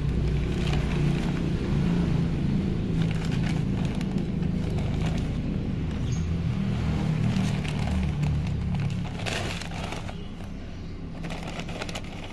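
Plastic bag crinkling and rustling as dry coconut coir is tipped out and pulled by hand into a plastic tub, with scattered crackles. Underneath is a steady low rumble that eases off about nine seconds in.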